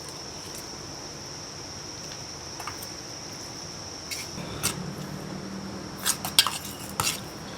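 Spoons clinking against plates during a meal: a few scattered sharp taps, with a cluster about six to seven seconds in, over a steady high-pitched whine.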